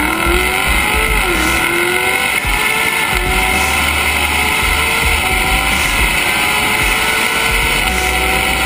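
Mercedes-Benz SLS AMG's 6.2-litre V8 at full throttle, heard from inside the cabin. Its pitch climbs steadily through each gear of the automatic gearbox, with four quick upshifts from first to fifth, each a sudden drop in pitch, as the car accelerates hard from about 30 to about 200 km/h.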